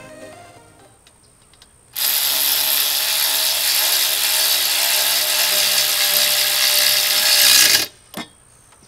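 Ratchet wrench with a 10 mm socket worked fast while tightening the intake mount bolts: a loud, dense, continuous clicking rattle that starts abruptly about two seconds in and stops sharply about six seconds later, followed by a single click.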